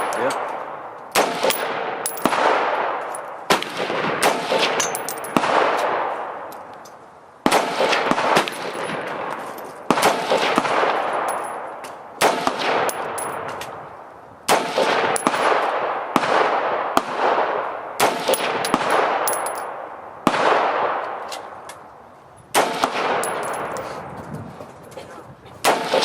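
AR-15 rifle firing single shots at a steady, unhurried pace, roughly one every one to two seconds, each sharp crack trailing off in a long echo.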